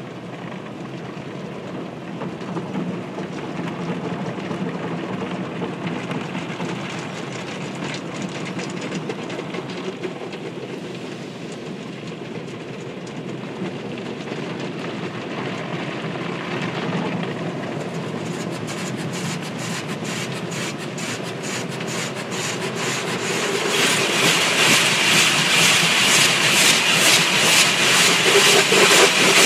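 Automatic car wash heard from inside the car: a steady din of machinery and spray, turning about two-thirds of the way in into a fast, rhythmic beating that grows louder toward the end.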